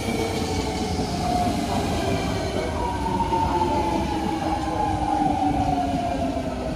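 BART train running loudly past the platform: a heavy rumble of wheels on rail under several whining tones that slowly fall in pitch from about halfway through.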